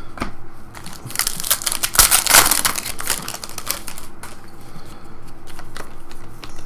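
Trading cards and their packaging being handled and flipped through: a burst of rustling and crinkling about a second in, then scattered small clicks and taps.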